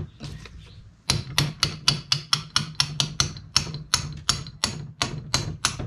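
Small ball-pein hammer lightly tapping a drift to drive a cross pin out of a Mini A-series differential carrier: quick, even metallic taps, about five a second, starting about a second in.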